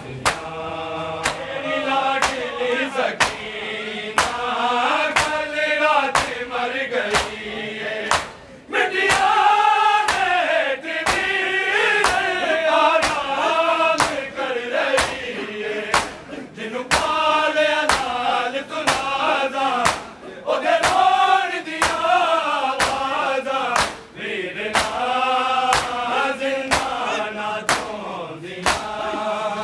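A noha recited by a male voice with a crowd of men chanting along, over a steady beat of chest-beating (matam) slaps about one and a half a second.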